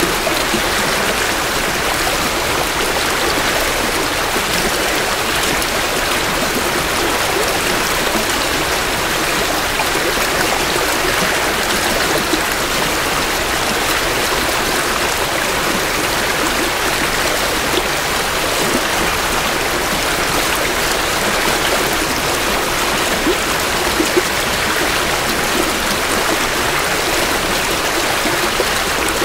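A creek swollen with spring runoff rushing and splashing over its bed, a steady, unbroken flow with small splashes ticking now and then.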